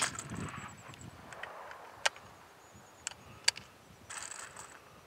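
The end of an AR-15 rifle shot's report fading away, followed by three sharp clicks about two, three and three and a half seconds in, and a short rustle near the end.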